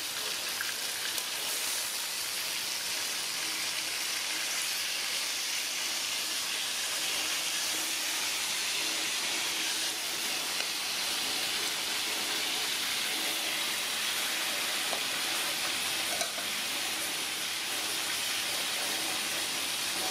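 Horse mackerel frying in hot oil in a metal wok: a steady sizzling hiss.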